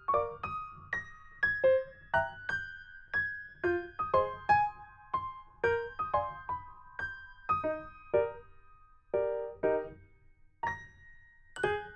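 Light background music on piano or electric piano: a simple melody of short struck notes, about two a second, with a brief pause near the end.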